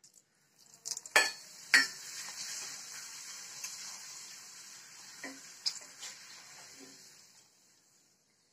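Two appalams (papads) frying in a kadai of hot oil left on after the stove was switched off: two sharp clinks about a second in, then a steady sizzle that slowly dies away, with a few light clinks along the way.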